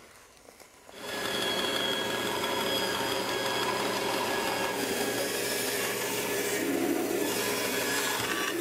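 About a second in, a bandsaw is heard running steadily as it rough-cuts a curve through a stacked slab of maple and mahogany.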